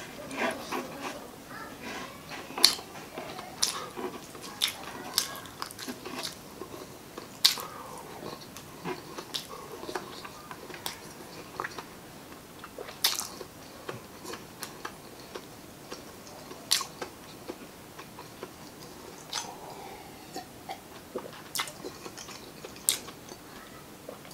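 Close-miked chewing of spicy adobo chicken gizzards and liver, with sharp mouth clicks coming at irregular intervals about every second or two.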